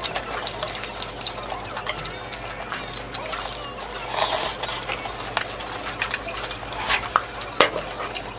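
Close-up eating sounds: wet chewing and a bite into a soft bun burger about four seconds in, with scattered small clicks and taps.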